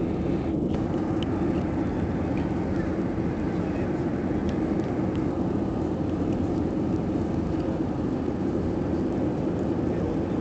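Steady drone of engine and airflow noise heard inside an Airbus A320's passenger cabin in flight, strongest in its low, deep range.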